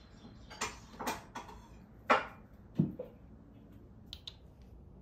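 A few irregular sharp clicks and soft knocks over a quiet room, the two loudest a little past two seconds in and under a second later.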